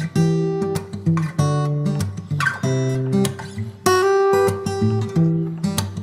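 Background music: strummed acoustic guitar chords with a steady rhythm.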